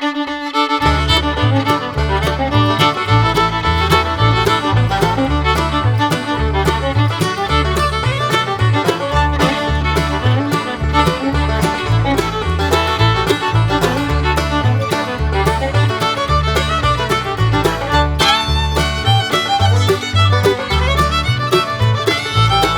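Instrumental background music with a steady, rhythmic bass line that comes in about a second in.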